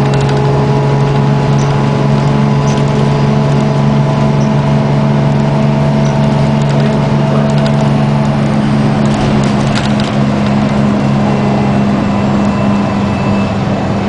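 The Detroit Diesel 6V92TA two-stroke V6 diesel of a 1994 New Flyer D40 city bus running steadily at an even speed, heard from inside the bus as a steady hum.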